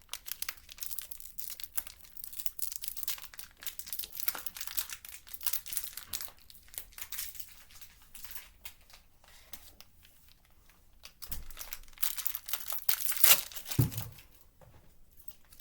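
Plastic gummy-candy packaging crinkling and tearing in irregular stretches as it is handled and opened, with a pause in the middle and the loudest crackle about two seconds before the end.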